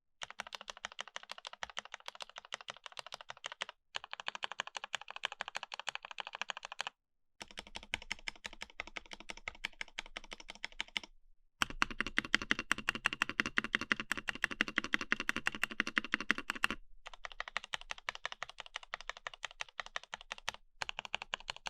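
Fast typing on a mechanical keyboard with Jwick Ultimate Black-series linear switches: a dense, even run of keystroke clacks. It is broken several times by abrupt cuts into short gaps, and one take, about 12 to 17 seconds in, is louder than the rest.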